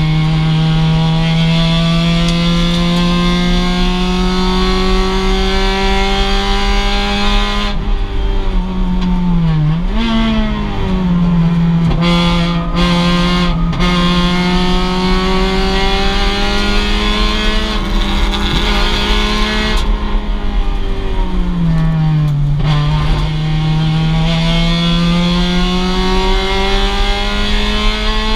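A 2006 Mazda MX-5 race car's stock four-cylinder engine pulls hard at high revs, its pitch slowly climbing along a straight. Twice it drops sharply and wavers, as the driver lifts and brakes and blips the throttle on downshifts, then it climbs again on full throttle.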